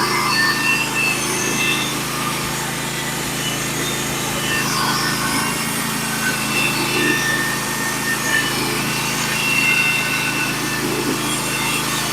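Manual sawmill's small engine running steadily while the blade cuts a board from a log.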